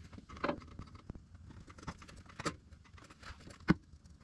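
Scattered light clicks and taps, with one sharp knock a little before the end, as the engine is lowered on a jack back down onto its motor mount.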